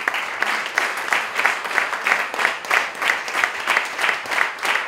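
A small audience applauding, hand claps falling in a steady rhythm of about three a second.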